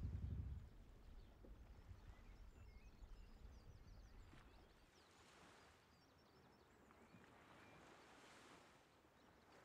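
Near silence outdoors, with faint small birds twittering in the distance; a low rumble stops about half a second in.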